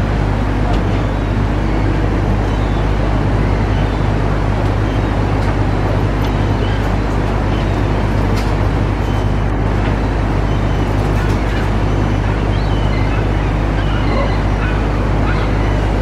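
Steady rush of water pouring over a river weir, with a few faint short bird calls over it.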